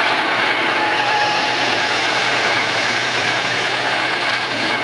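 AI-generated train sound effect from Meta's Audiobox: a train running along steadily, a dense, continuous rail rumble and rattle.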